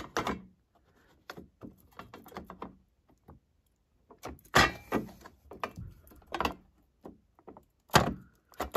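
Metal drip-tray grille of a Philips espresso machine being picked up and set down onto the drip tray: a series of light clacks and knocks, the loudest about halfway through and again near the end as it seats.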